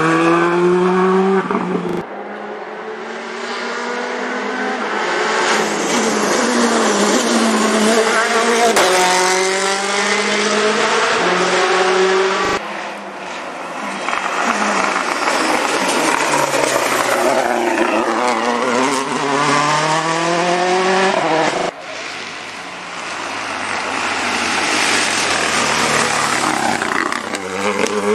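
Rally cars at full throttle one after another, each engine revving up through the gears with a rising note that drops back at every shift. The sound breaks off abruptly three times as one car gives way to the next.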